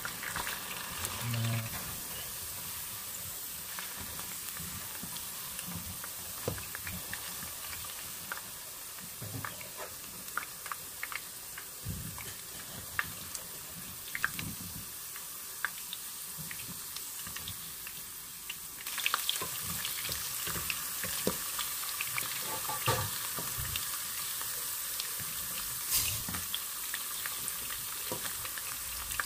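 Potato wedges and then carrot pieces frying in oil in a nonstick wok: a steady sizzle, with scattered clicks of a spatula against the pan as pieces are stirred and lifted out. About two-thirds of the way in the sizzle gets louder.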